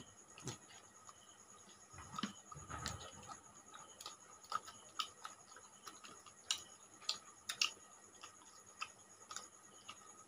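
Quiet eating sounds of people eating rice and curry by hand: irregular small clicks and smacks of chewing and of fingers mixing rice on plates, with a soft low thud about two to three seconds in.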